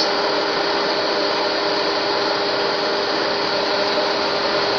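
Car air-conditioner blower running: a steady rushing whir with a steady hum through it.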